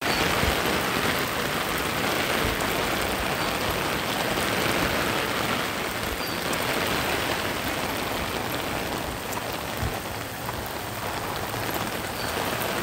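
Heavy rain pouring steadily onto a paved street, an even, unbroken wash of noise.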